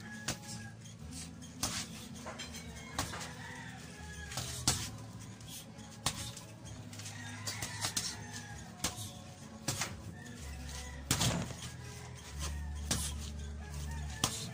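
Fists smacking a homemade reflex ball that hangs on a cord: sharp single hits at irregular spacing, about nine in all, over background music with a steady bass line.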